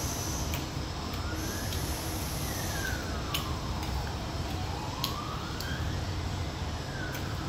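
A siren wailing, its pitch slowly rising and falling about every two seconds, over a steady low rumble. A few light clicks of a spoon against the pan are scattered through it.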